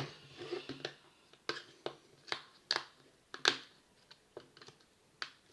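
Scattered light clicks and taps from handling a power drill's plastic casing and loose screws during teardown, about eight sharp clicks at uneven intervals.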